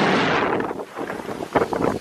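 Wind rushing over the microphone of a camera carried on a downhill ski run, easing about half a second in, then several short scrapes of skis on the snow near the end.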